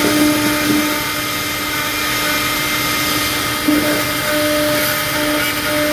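CNC milling machine running and cutting plastic: a steady whirring noise with a humming tone that drops out about a second in and comes back near the end.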